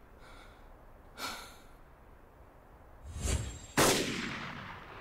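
A lower thump just after three seconds, then a loud gunshot about four seconds in that dies away slowly with a long echo.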